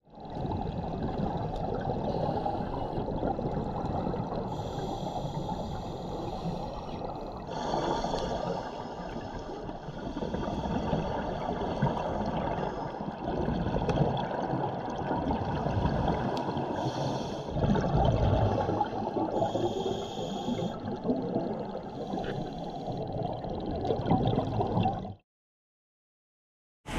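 A scuba diver's exhaled bubbles recorded by an underwater camera: a low bubbling, gurgling rush that swells every few seconds. It cuts off suddenly near the end.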